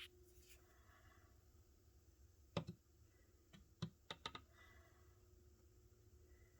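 Near silence broken by a few short, sharp clicks: one about two and a half seconds in, then a quick cluster of three or four smaller clicks a second or so later.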